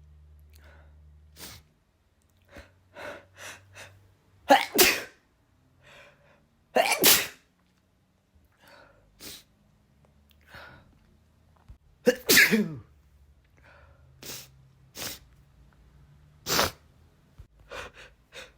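A man sneezing repeatedly: several loud, sudden sneezes a few seconds apart, the biggest about twelve seconds in, with quick sniffs and breaths between them. The sneezes are set off by chhinkni, a sneeze-inducing herbal snuff.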